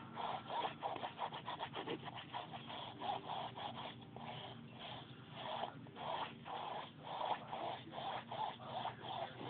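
Wet foam wedge rubbed back and forth over a stretched canvas, blending acrylic paint, in a quick steady run of scrubbing strokes, two or three a second.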